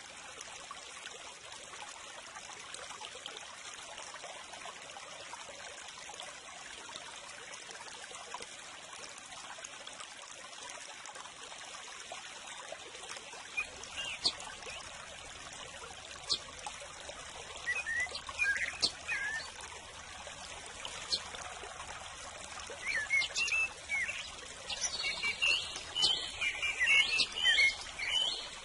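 Steady trickle of running water with small songbirds chirping. The chirps begin about halfway through and grow busier toward the end.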